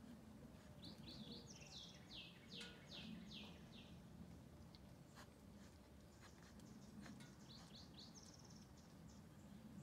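Faint bird song: a quick series of high notes starting about a second in and lasting about three seconds, then a shorter series near the end. A few faint clicks sound over a quiet background.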